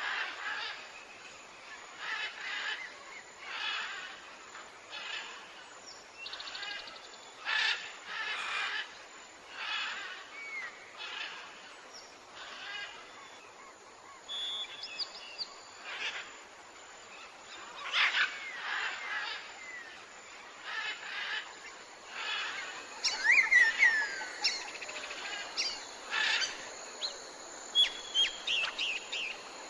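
Wild birds calling and singing: one call repeats about every second and a half, with short chirps and trills from other birds over it, busiest near the end.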